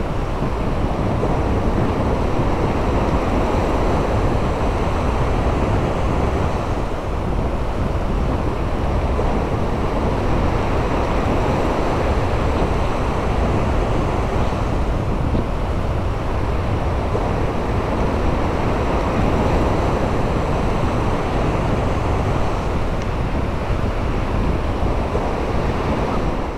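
Wind buffeting the microphone, steady and loud, over the wash of surf breaking on a sandy beach.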